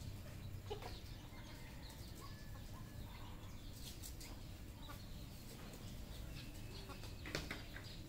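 Red junglefowl clucking faintly, with a few short calls about a second in, around four seconds, and a louder burst of clucks near the end.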